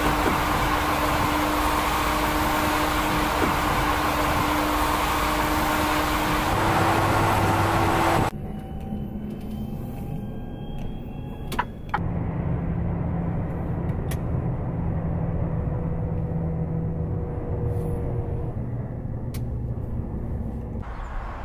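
Mercedes-Benz GenH2 hydrogen fuel-cell electric truck on the motorway: loud tyre and road noise with a steady whine as it drives. After about eight seconds the sound turns to the quieter cab, with a faint electric drive whine rising slowly in pitch, and then a steady low hum under the road noise.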